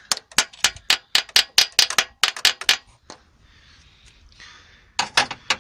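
Rapid light hammer taps, about five a second, on the seized valve of a ZMZ 402 engine, knocking the stuck valve down in its guide. The valve is jammed, which the owner puts down to sticky dirt under the valve seal. The tapping stops about three seconds in, and a short run of taps returns near the end.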